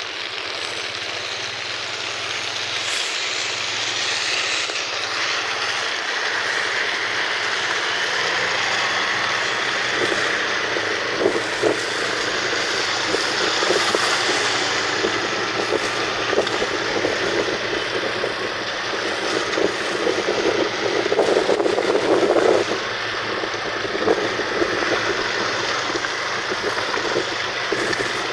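Heavy rain pouring down, a steady wash of noise with dense crackling patter from drops striking surfaces, heaviest a little past the middle.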